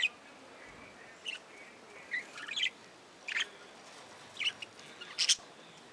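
Budgerigars chirping: short, separate high chirps about once a second, the loudest a little before the end.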